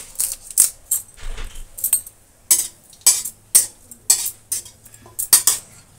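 Steel spatula scraping and clinking irregularly against a steel kadhai while bay leaf is stirred in hot oil, with light sizzling.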